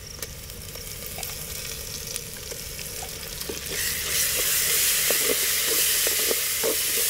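Onions, green chillies and freshly added ginger-garlic paste frying in mustard oil in a clay pot over a wood fire, stirred with a wooden spoon that knocks lightly against the pot. The sizzle swells suddenly about four seconds in.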